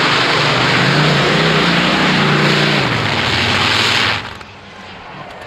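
Pulling tractor powered by two Rolls-Royce Griffon V12 aircraft engines, running loud under full power with its pitch rising and then sagging. About four seconds in, the sound drops away abruptly.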